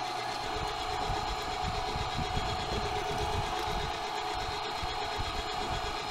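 A 1.5 hp electric meat grinder runs steadily under load while coarse-grinding venison trim. Its motor gives a constant whine over an uneven low rumble as the meat is forced through the coarse plate.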